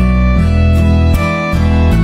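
Instrumental music in a mariachi-style ballad arrangement: violins over strummed guitars and a bass line that changes note several times.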